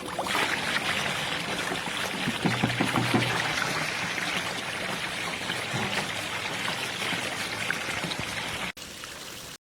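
Water from an Intex 56028 LED pool waterfall pouring steadily into the pool, a constant splashing rush. A brief low rumble comes about three seconds in, and near the end the sound drops to a quieter level before cutting off.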